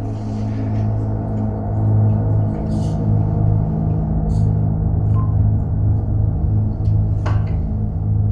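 A low, sustained droning tone of background music that holds steady, with a few short faint clicks over it.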